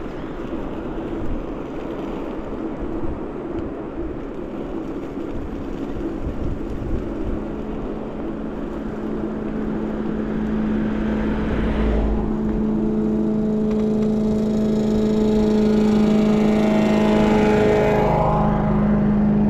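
Ninebot Max G30P electric scooter ride: wind and tyre rush at first, then from about halfway the rear hub motor's whine rises over several seconds as it speeds up, falling away just before the end.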